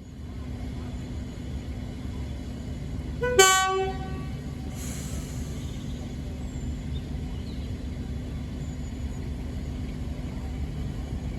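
Class 31 diesel locomotive's English Electric V12 engine running steadily as it departs, with a short horn blast about three seconds in that drops in pitch after a moment, followed soon after by a brief hiss.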